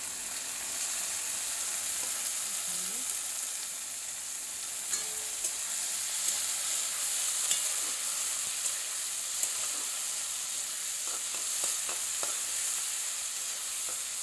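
Chopped green beans, tomato and onion sizzling in oil in a wok, with a steady hiss. A steel spatula stirs them, scraping and clicking against the pan now and then, more often in the second half.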